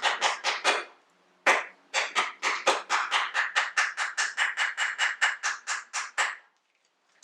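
Mallet tapping a cap into the CV axle joint housing: quick, even light taps, about five a second. They break off for a moment about a second in, then run on steadily and stop shortly before the end.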